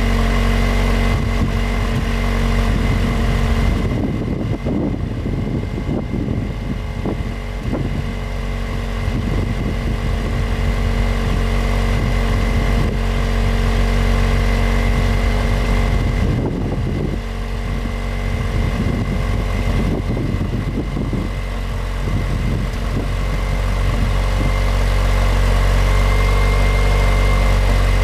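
Jeep Wrangler's 2.0-litre turbocharged four-cylinder engine idling steadily through its exhaust. Irregular low rumbling noise lies over the idle twice, a few seconds in and again past the middle.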